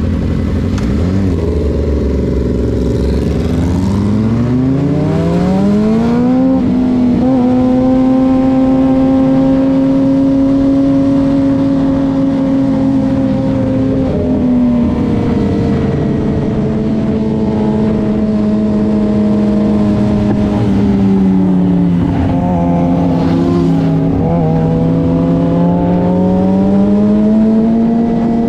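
Suzuki GSX-R600 sportbike's inline-four engine idling, then revving up as the bike pulls away a few seconds in. It settles into a steady cruise, drops in pitch twice, and rises again near the end.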